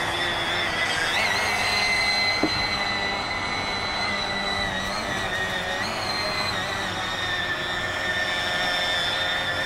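Model boat's outboard motor running steadily at speed, a high-pitched whine that wavers briefly in pitch a few times. This is a test run after a fix for the propeller cavitating, which the owner reports as successful.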